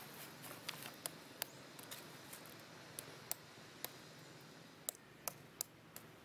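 About a dozen sharp, irregular clicks over a faint steady background.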